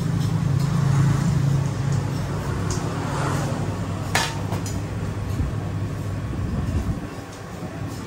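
Low, steady hum of a road vehicle's engine running close by, dropping away near the end. About halfway through comes a single sharp clink of tableware.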